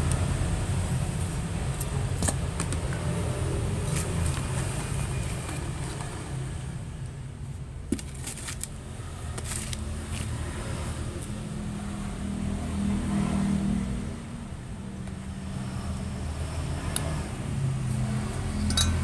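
A motor vehicle engine running in the background, its pitch rising and falling, with a few light clicks through it.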